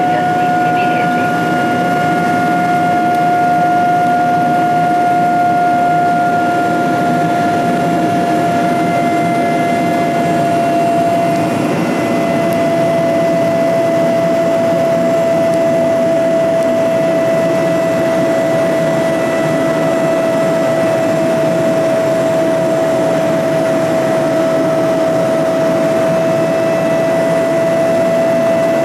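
Cabin noise of a Boeing 777-200ER during the climb after takeoff: a steady roar from its GE90 turbofans, with a high whine that drifts slightly lower in pitch.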